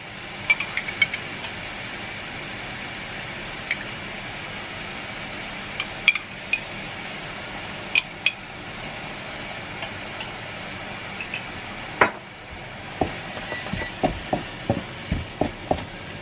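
Ground beef frying with a steady sizzle in a non-stick pan, with light clinks from a glass sauce jar and its lid as tomato sauce goes in. Near the end a wooden spatula knocks against the pan, several times a second, as the sauce is stirred.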